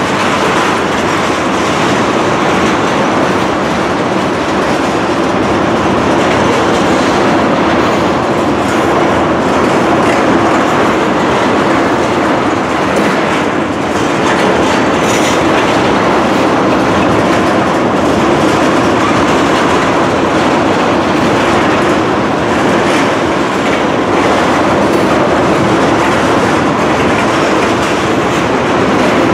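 Railroad tank cars of a long freight train rolling past at close range: a loud, steady rumble of steel wheels on the rails.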